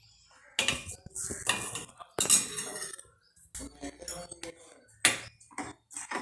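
Steel ladle knocking, clinking and scraping against a stainless-steel saucepan as milk tea is stirred, in irregular strikes after a quiet first half second.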